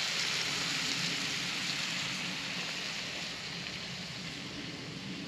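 Blackened shrimp in a hot oiled frying pan sizzling as half-and-half is poured in, the sizzle slowly easing as the cream goes in.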